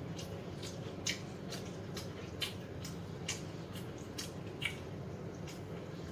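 Crunching and chewing of crispy fried chicken close to the microphone: a series of short, sharp crunches at irregular intervals over a steady low room hum.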